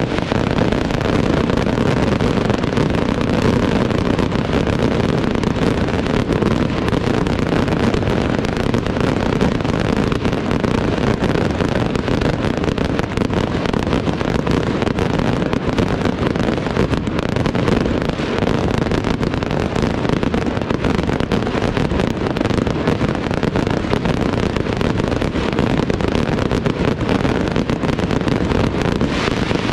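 Aerial fireworks display firing a dense barrage: many shells bursting in rapid succession, blending into a continuous rumble of bangs and crackle.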